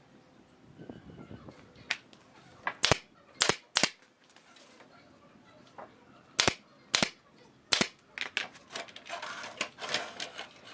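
Pneumatic brad nailer firing nails through a pine board into the frame: about six sharp shots, three in quick succession about three seconds in and three more about seven seconds in. A rough scraping noise follows near the end.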